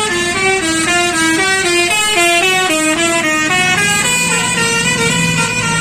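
Bus 'telolet' Basuri multi-tone horn playing a quick stepped melody, its notes switching several times a second; the melody stops about three and a half seconds in and a lower steady hum carries on.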